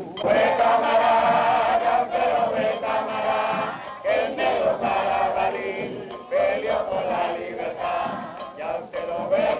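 A group of voices singing or chanting together in long held phrases, with short breaks between the phrases.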